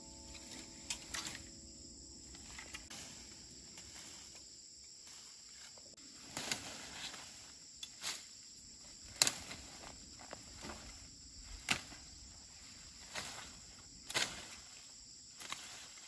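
Rustling and sharp snaps of stems and leaves as someone moves and works through dense undergrowth, irregular and spaced a second or two apart, over a steady insect chirring.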